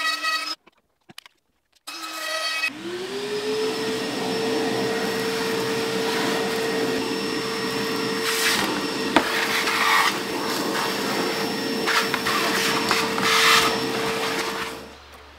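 Brief choppy snatches of a lower-pitched hum, then about three seconds in an electric motor spins up with a quick rising whine to a steady high pitch. It runs evenly with a few louder rushing passages and stops shortly before the end.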